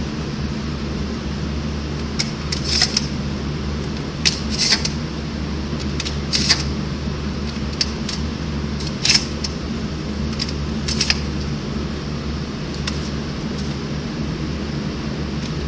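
Steady low hum of an indoor shooting range, with about ten short metallic clicks and rattles scattered through as a handgun is readied before the first shot.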